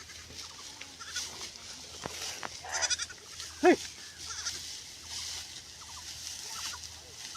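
Farm animal calls: a wavering call about three seconds in and a short, louder call just after it. Small scattered chirps and a steady high hiss run underneath.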